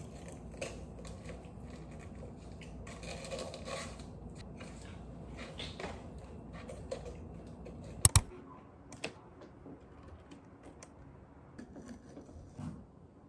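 Eating fried chicken: scattered small clicks, taps and crunches, with a sharp double click about eight seconds in.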